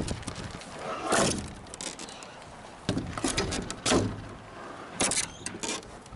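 Irregular footsteps and knocks, several sharp sounds spread unevenly over a few seconds.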